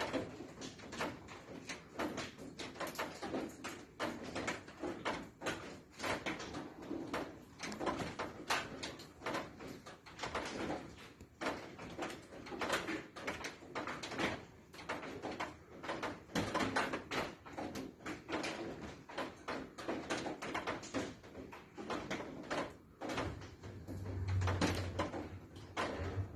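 Rapid, irregular knocks and thuds, several a second. A steady low buzz comes in near the end.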